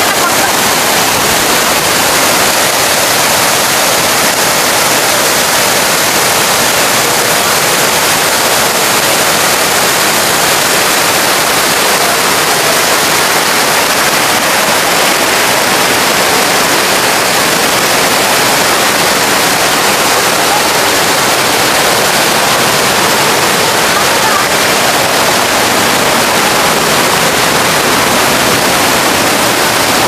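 Steady, loud rush of water from a waterfall and a stream cascading over rocks.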